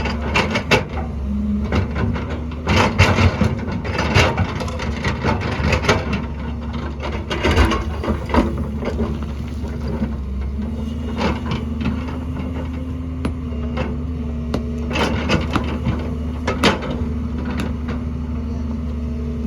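Excavator engine running steadily while its bucket digs through rock and mud, with frequent irregular knocks and cracks of rock against steel.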